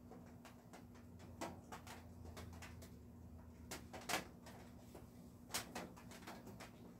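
Faint, irregular clicks and taps, the sharpest a little after four seconds in, over a low steady hum.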